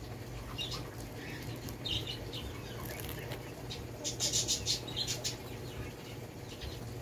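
Durian husk being pried and torn apart by hand, the fibrous rind crackling and ripping, loudest as a rapid crackle from about four to five seconds in.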